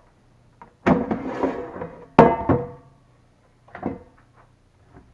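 Farberware air fryer basket drawer pulled out of the unit with a sudden scrape about a second in, then set down with a loud ringing clunk just after, followed by a smaller clatter of the basket being handled.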